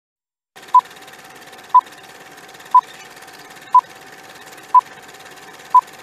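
Old-film countdown leader sound effect: a short beep once a second, six in all, over a steady crackly film hiss with a faint steady tone underneath.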